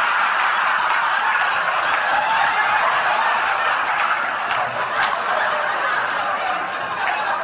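An audience laughing loudly and without break, a dense wash of many people's laughter.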